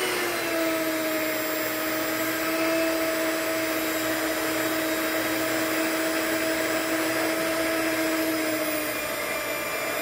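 Electric hand mixer running at a steady speed with a steady whine, its beaters churning a block of cream cheese to soften it.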